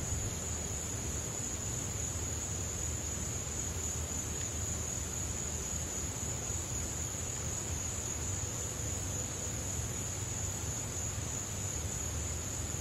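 Night insects singing in a steady, unbroken high-pitched chorus, over a low background hum.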